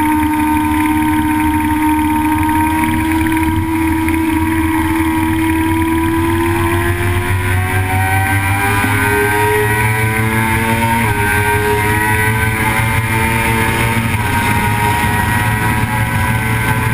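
Vehicle engine under load at speed. It holds steady revs, then pulls up through the revs from about six seconds in, with sudden drops in pitch about eleven and fourteen seconds in as it shifts up a gear. Wind and road noise run underneath.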